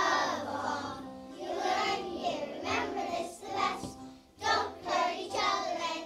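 A group of young children singing a song together, with instrumental accompaniment holding steady notes underneath. There is a short break in the singing just after four seconds in.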